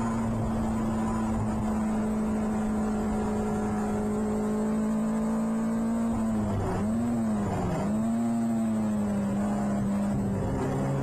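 Onboard sound of a PRB Clubman Seven-style race car's engine holding a steady high note under wind rush. About two-thirds through, the engine note dips sharply twice and recovers, then settles slightly lower and begins to climb again near the end.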